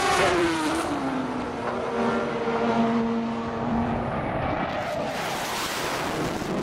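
A race car's engine going past: its pitch drops as it passes, then holds steady as it pulls away. From about four seconds in, a rising rushing noise takes over.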